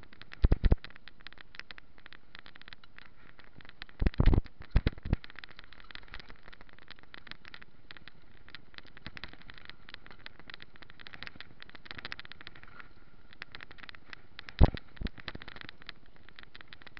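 Mountain bike ridden over a dirt trail, heard from a camera mounted on its frame: a steady, fast rattling and crackling from the tyres and bike over the rough ground. A few heavy thumps break through: two about half a second in, a cluster around four to five seconds, and one about fourteen seconds in.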